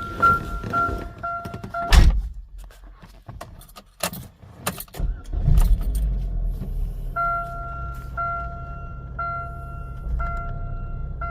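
A car's warning chime pinging rapidly, then clicks and a 2009 Chevy Cobalt's engine starting about five seconds in and settling into a steady idle, with the chime ringing about once a second. The idle carries a slight misfire.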